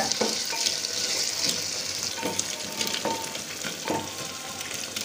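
Sliced onions frying in hot mustard oil in a clay pot, with a steady sizzle and the irregular scrapes and knocks of a wooden spatula stirring them.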